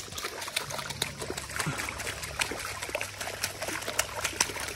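Pool water splashing and trickling as bare feet kick and dangle in a swimming pool, many small quick splashes over a steady dribbling wash.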